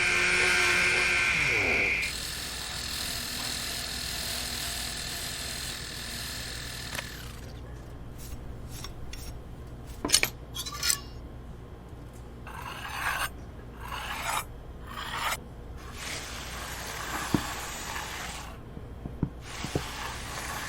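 A power tool's motor winds down and stops about two seconds in. Irregular rasping strokes of hand filing or sanding on a metal knife blank follow from about seven seconds on.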